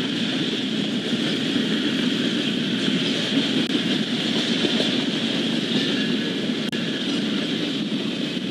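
Freight cars of a double-stack intermodal train rolling past, a steady, even rumble of wheels on rail.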